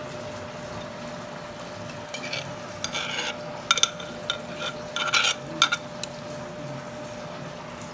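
Metal spoon scraping and clinking against a clay mortar and a ceramic plate while noodle salad is scraped out of the mortar: a run of scrapes and sharp clicks from about two seconds in until about six seconds, over a steady hum.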